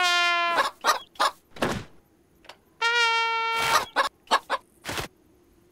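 A trumpet blown in a held note at the very start, then cartoon chicken clucks and short knocks, and a second, higher held note about three seconds in.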